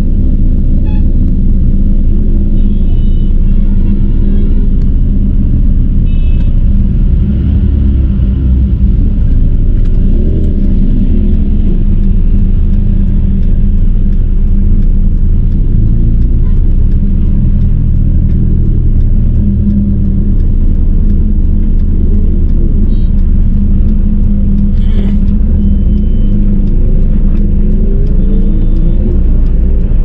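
Steady low rumble of a Hyundai Elantra driving, heard from inside the cabin, with a few short honks from surrounding traffic.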